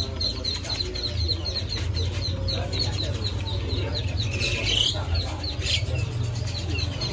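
Busy animal-market chorus: caged birds chirping rapidly and fowl clucking over a steady low hum, with one louder rising squeal about four and a half seconds in.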